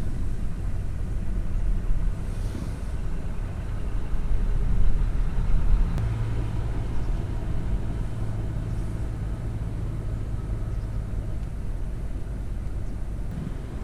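Motor vehicle driving with its engine running low and steady; a steadier low engine hum comes in about six seconds in.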